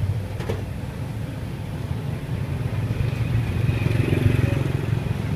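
Street traffic with motorbike engines running close by: a steady low rumble that grows a little louder past the middle.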